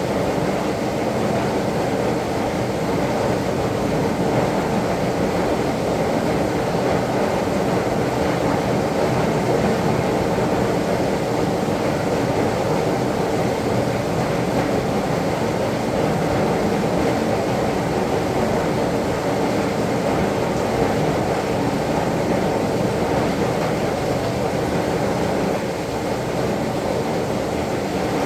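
Heavy rain falling, a loud, steady rush with no let-up.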